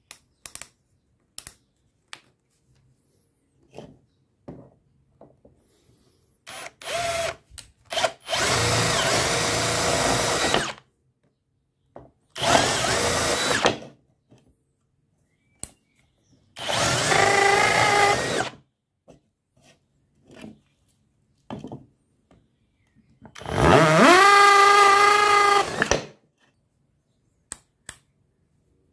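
Bosch UniversalImpact 18V brushless cordless drill running in five short bursts of one to three seconds, drilling holes in a wooden board, with small handling clicks between the bursts. In the last burst the motor's whine rises as it spins up, then holds steady.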